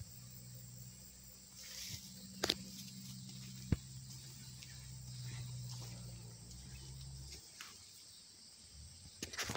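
Steady high-pitched drone of insects, over a low hum that stops about seven and a half seconds in. There are two sharp clicks a little over a second apart, and a rustle of movement right at the end.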